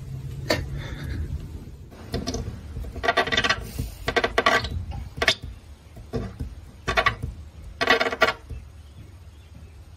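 A dog's teeth and mouth clattering against a glass door pane in about five short bursts, with a low hum underneath.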